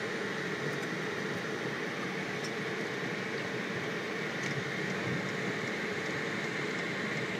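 Steady rushing noise inside a moving car in heavy rain, with a few faint ticks of drops on the body.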